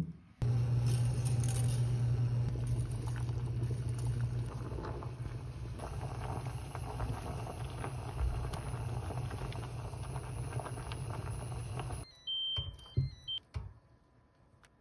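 Steady low electrical hum with a faint hiss at a stove where a cream pasta sauce is cooking. It cuts off sharply about twelve seconds in, and a few short electronic beeps and light clinks follow.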